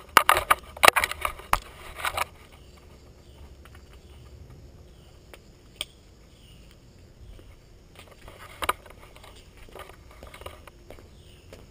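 Loud close rustling and knocks from a GoPro being handled for the first two seconds or so, then a quiet outdoor background with faint chirps repeating at an even pace. A few sharp clicks come from road-cycling shoe cleats stepping on stone and pavement.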